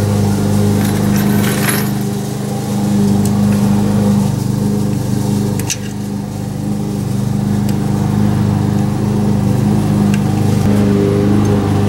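A steady motor drone, like an engine running, with a few light metallic clicks from the brake work.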